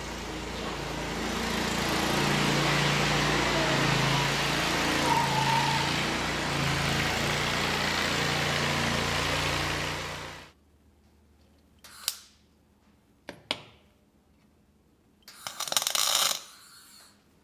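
Scag Turf Tiger zero-turn mower's engine running as the mower is driven, cutting off suddenly about ten seconds in. Then two sharp clicks, and near the end about a second of MIG welding crackle.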